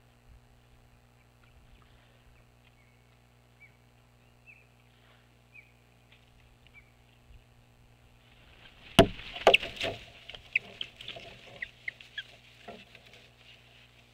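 A second osprey landing on the stick nest about nine seconds in: a sudden loud hit and flapping, then a few seconds of sticks rustling and cracking, with short high chirping calls as the pair settle. Faint short chirps come before the landing.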